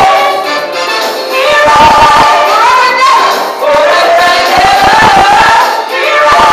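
Women singing a worship song into microphones, with musical accompaniment.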